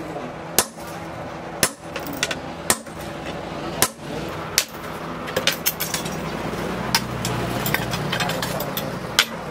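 Hammer blows on a flat steel bar held in a bending jig, sharp metallic strikes roughly once a second with a quick flurry in the middle. A steady low hum runs underneath and grows louder near the end.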